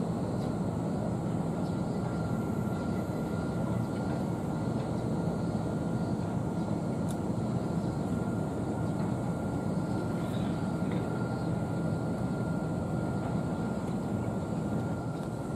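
Steady low rumble of outdoor background noise with a faint, steady high tone above it.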